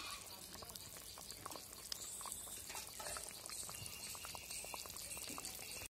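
A pumpkin and fish sour curry simmering in an iron kadai: faint bubbling with many small scattered pops.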